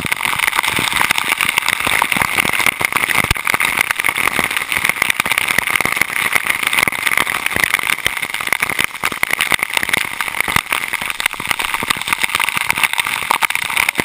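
Waterfall pouring close up, a steady loud rush of falling water with constant crackling spatter as the water strikes the camera.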